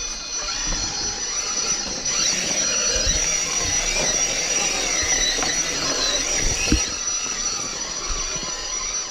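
A 1:10 scale RC rock crawler's electric motor and gear train whining as it crawls over rock. The whine wavers up and down in pitch with the throttle and is loudest through the middle. A few knocks of the truck against the rock come through, the sharpest about two-thirds of the way in.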